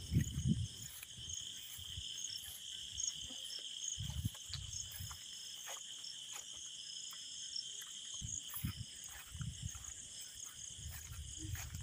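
Steady high chirring of insects, crickets or the like, across the fields, with a few dull low thumps of footsteps on soft wet ground.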